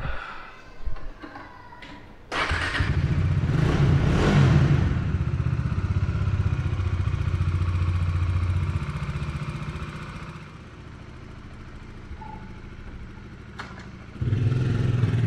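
Bajaj Dominar 400 motorcycle's single-cylinder engine starting with a sudden loud catch about two seconds in, revving up briefly, then running steadily. It drops to a quieter idle a few seconds later and picks up loud again near the end. A couple of knocks come just before it starts.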